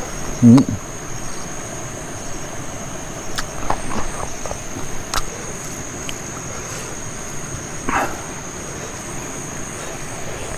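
Quiet eating sounds: fingers working rice on a banana leaf, soft clicks and chewing, with a short low mouth sound just after the start. A steady high insect buzz carries on underneath.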